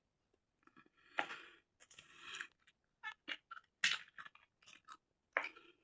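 Crispy homemade french fries being chewed close up: a run of irregular crunches.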